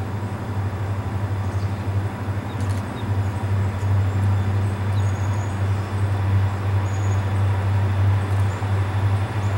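Diesel locomotive engines running with a steady low hum.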